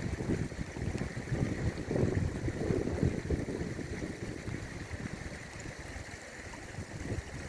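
Strong wind gusting and buffeting the microphone over a flowing river's steady rush; the gusts are strongest about two to three seconds in.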